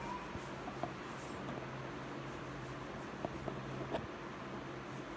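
Fingertips rubbing and scratching through oiled hair at the scalp, with a few soft clicks, over a steady low hum.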